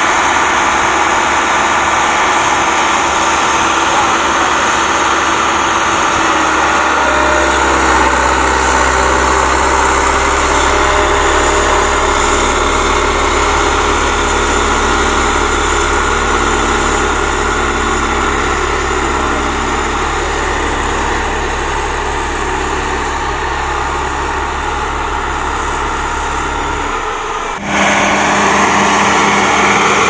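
Diesel engine of a Case 1107 EX vibratory soil compactor running steadily as it works an earth embankment. A deep steady hum joins in about seven seconds in and stops near the end, where the sound changes abruptly.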